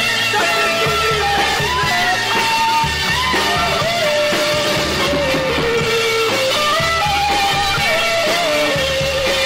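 Recorded rock band music in an instrumental passage: a guitar plays a stepping lead melody of held notes over a steady repeating bass line.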